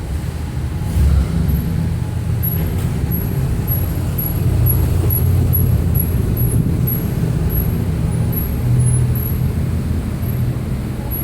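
Short, high-pitched squeaks from a Lincoln MKS's driver-side rear wheel at low speed, repeating about twice a second in time with the wheel's turning, over the low rumble of the car rolling. The owner suspects the brake caliper bracket or slide pins.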